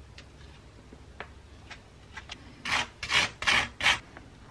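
A spreader scraping mayonnaise across slices of toasted bread: a few light scratches, then four short rasping strokes in the second half.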